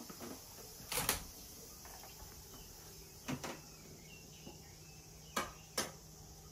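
Faint steady chirring of insects, with four short knocks, the last two close together near the end.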